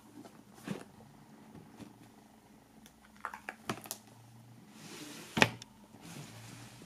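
Hands handling a cardboard DVD box set: light taps and clicks, then cardboard rubbing and sliding, with a sharp knock about five seconds in as the lid is opened, over a faint low hum.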